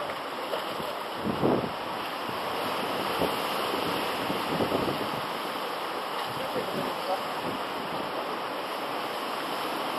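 Sea surf washing against shore rocks, a steady wash with a few brief louder surges, the strongest about a second and a half in. Wind buffets the microphone throughout.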